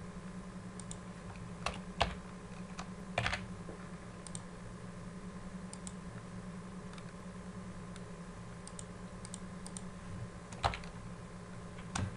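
Computer keyboard keys pressed as scattered single taps rather than fast typing, a dozen or so isolated clicks, over a steady low electrical hum.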